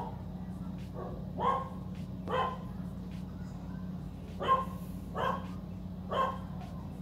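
A dog barking in short, separate barks, about six of them spaced unevenly, over a steady low hum.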